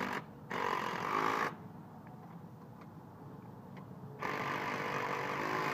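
Cordless DeWalt drill with a socket driving and tightening a nut and bolt on a steel cart frame. There is a short run of about a second, then a longer run near the end.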